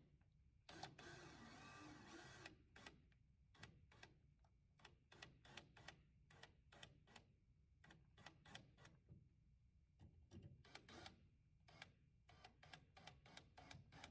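Faint, irregular clicking and ticking of a screwdriver driving a light switch's mounting screws into the wall box, a few clicks a second.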